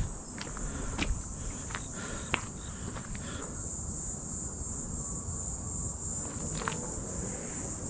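Crickets trilling in a steady, high-pitched chorus, with a few footsteps on the trail in the first couple of seconds.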